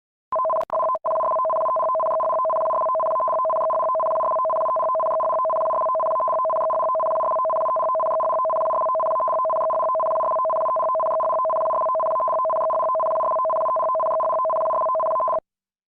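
Emergency alert attention tone: two steady electronic tones sounding together, a lower one and a higher one. It stutters twice at first, then holds for about fifteen seconds and cuts off sharply. It is the attention signal that opens a tsunami warning.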